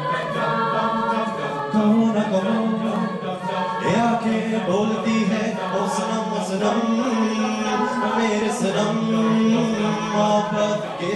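Mixed-voice Hindi fusion a cappella group singing: several voices harmonise over a low sustained bass line, with sharp clicks of vocal percussion here and there.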